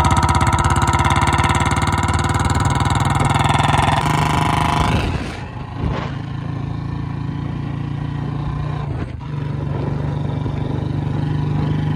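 Royal Enfield Classic single-cylinder engine running through a loud aftermarket exhaust that replaces the quiet stock silencer. It is held at raised revs for about five seconds, then drops back to a lower, steady running note.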